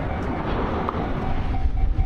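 Japanese level-crossing warning bell ringing in a steady, evenly repeating ding, with the low rumble of an approaching train growing near the end.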